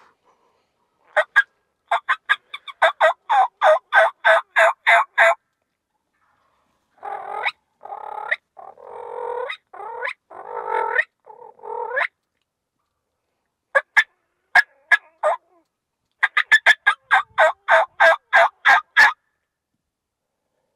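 Wild turkeys calling: a run of rapid, evenly spaced notes, then a cluster of longer, rougher calls, then another rapid run near the end.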